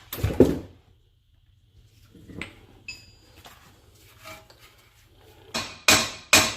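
Metal-on-metal knocks and clinks as a car's front strut is worked down out of its mount, with a short ringing tone near the middle, and a quick run of sharp metal strikes near the end.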